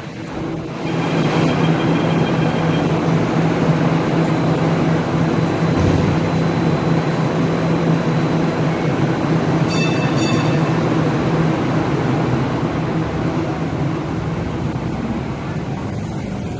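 Hong Kong Light Rail Phase 1 light rail vehicle running at a station platform: a steady electrical hum with rail and running noise, easing a little near the end as the train pulls away. A brief high-pitched chime sounds about ten seconds in.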